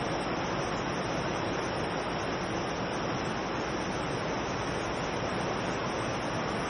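Steady rushing and splashing of water from fountain jets falling back into the basin.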